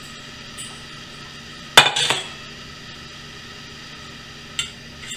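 A sharp clatter of tableware about two seconds in, with a few fainter clicks before and after.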